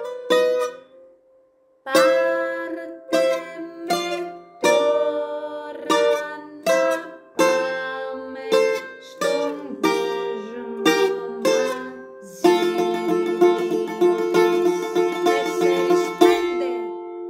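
Greek bouzouki picked with a plectrum: a phrase of single melody notes with a short pause about a second in. Near the end it changes to tremolo, fast repeated picking held on a few sustained notes for several seconds.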